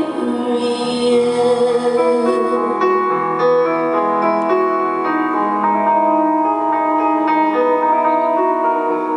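Piano played live in concert: a passage of sustained chords and melody notes, the notes changing steadily throughout.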